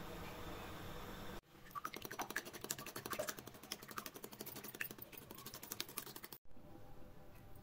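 Wire whisk beating raw eggs in a bowl: a fast run of light clicks as the wires strike the bowl, lasting about five seconds and stopping abruptly. A steady faint hiss comes before it.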